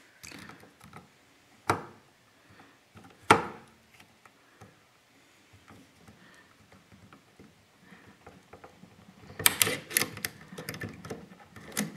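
A steel circlip being worked along a Maico 500's splined transmission output shaft with snap-ring pliers: two sharp metallic clicks in the first few seconds, then a quick run of clicks and rattles near the end.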